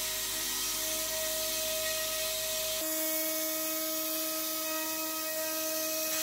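CNC router spindle (a 3.2 kW Jianken high-speed spindle) milling thin 1/8 inch plywood, with a vacuum nozzle at the cutter sucking up the chips: a steady whine over a loud hiss. The whine shifts in pitch about three seconds in.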